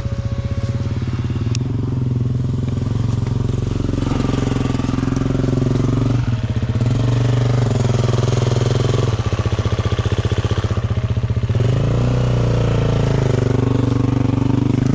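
Enduro dirt bike engine running under load, its revs rising and falling repeatedly as the throttle is worked on a difficult forest section.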